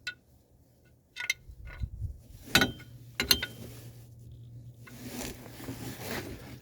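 Drum brake shoes and their metal hardware being handled: four separate sharp clinks and knocks, the clearest two near the middle. A faint low hum and soft rustling follow.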